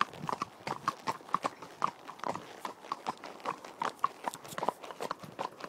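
Two horses' hooves clip-clopping on a tarmac lane, a steady run of about four hoof strikes a second.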